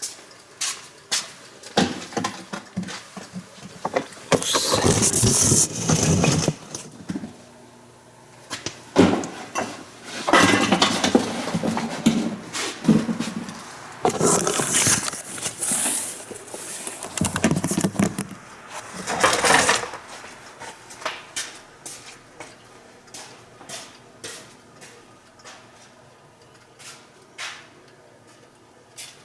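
Immersion tube burner making an abnormal noise: four rough, loud bursts of two to three seconds each in the first two-thirds, with scattered sharp clicks in between and after.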